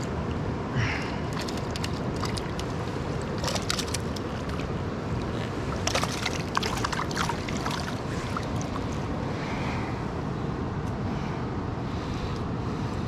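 River water running steadily over stones, with scattered short clicks and splashes, thickest about halfway through.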